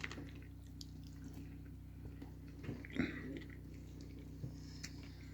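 Quiet eating sounds: chewing, with a few small clicks and a louder knock about three seconds in, over a steady low hum.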